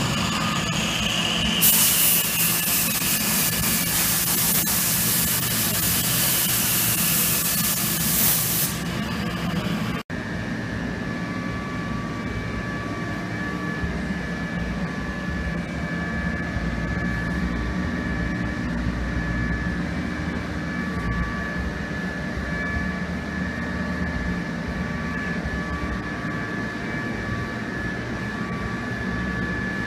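A handheld power tool running against the sheet metal of a car's rear quarter panel, a loud hissing rush for about seven seconds, its pitch dropping briefly near the start. It breaks off suddenly, and a steady, quieter hum with a few faint steady tones follows.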